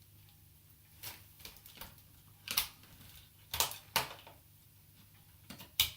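Scattered clicks and knocks of objects being handled, about five sharp ones spread over a few seconds with the loudest near the end; the vacuum's motor is not running.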